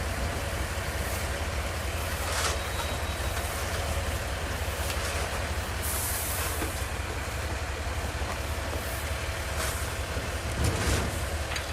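Steady low rumble of outdoor street noise, with a brief hiss about six seconds in.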